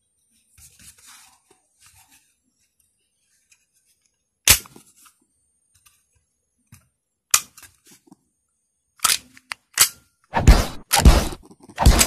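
Glock 26 pistol's slide and frame being handled: sharp metallic clicks a few seconds apart, then a quick run of clicks and clatter near the end.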